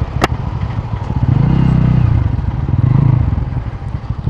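Bajaj Pulsar N160's single-cylinder engine pulling away under throttle, its note swelling and easing twice as the bike gathers speed. There is a sharp click near the start.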